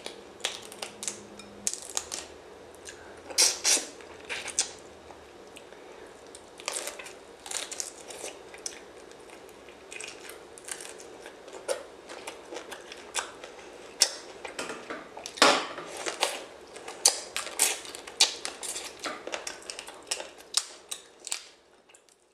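Prawn shells crackling and snapping as they are peeled by hand: a dense string of sharp, irregular clicks and crunches, with the loudest snap about two-thirds of the way through.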